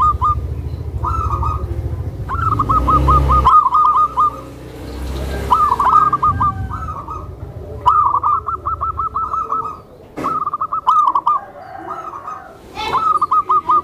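Zebra doves (perkutut) calling: short, rapid trills of repeated notes, one after another every second or two, over a low rumble for the first few seconds.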